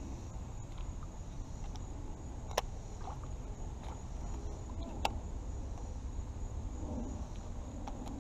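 A few sharp clicks from handling a baitcasting reel while casting and retrieving, about two and a half seconds apart, over a steady low rumble.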